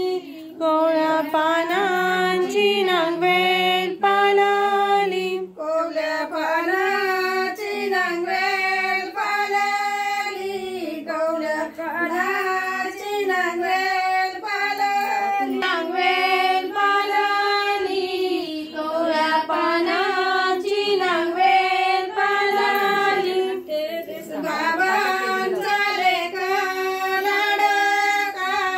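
A high female voice singing a haldi ceremony song without pause: a melodic line of held notes bending up and down.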